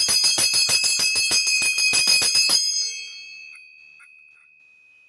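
A large copper hand bell shaken rapidly, its clapper striking about eight times a second. It stops a little over halfway through and the bell rings on, a single high note fading away. The note sits between D sharp 7 and E7, over a low hum near A4.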